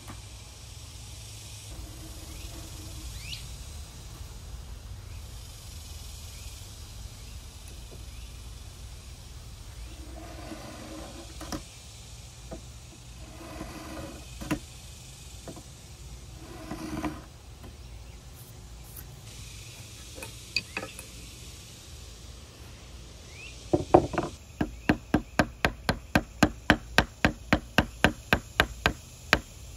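Woodworking knocks: a few scattered wooden knocks and scrapes, then, near the end, a rapid, even run of sharp wooden knocks at about three or four a second.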